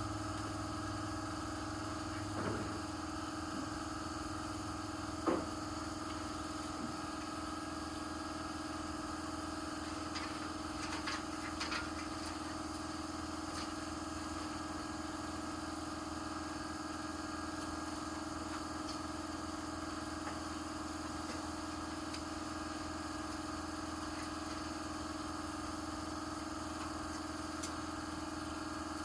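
A steady machine hum with level tones. A few light knocks come about two and five seconds in, and a small cluster of clicks comes about ten to twelve seconds in.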